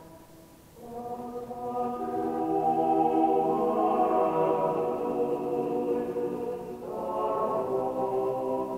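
A choir singing slow, sustained chords with several voices holding long notes, echoing under a stone church vault. The voices come in about a second in, swell, and move to a new chord near the end.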